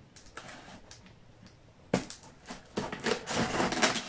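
Scissors slitting the packing tape on a cardboard box: a sharp tap about two seconds in, then a run of short scraping strokes as the blade cuts through tape and cardboard.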